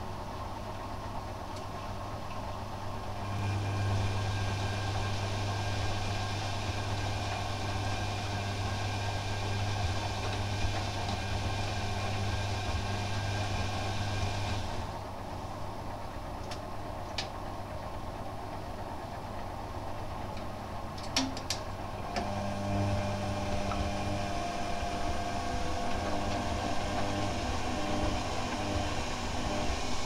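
Hoover Quattro 1100 front-loading washing machine running mid-cycle: a steady low hum, with a rushing hiss on top from about three seconds in until about halfway, a few sharp clicks, then a changed, higher motor tone from about two-thirds of the way through.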